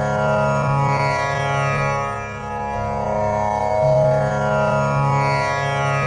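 Tanpura drone tuned to C#, its strings plucked one after another in a repeating cycle that swells about every four seconds.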